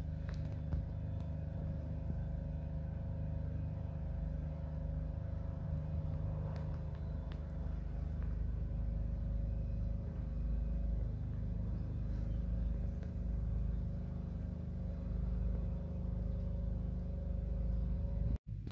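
Steady low rumble with a constant motor-like hum, of the kind made by distant engines or road traffic.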